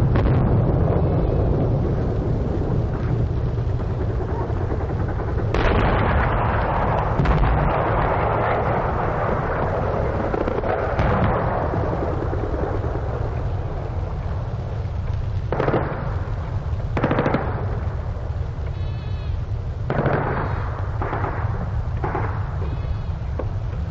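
Archival 1944 battlefield recording of machine-gun fire and artillery and mortar fire over a steady low rumble. A long loud stretch comes about five seconds in, and several short bursts of fire follow in the second half.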